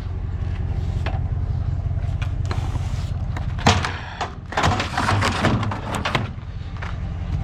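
Vehicle engine running steadily, with a sharp knock a little past midway and a short stretch of clatter and rattles just after.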